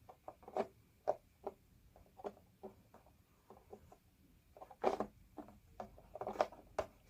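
Light handling noises: irregular small clicks, taps and rubbing, with a cluster of louder ones about five seconds in, from decal film being worked onto a thin plastic RC car body.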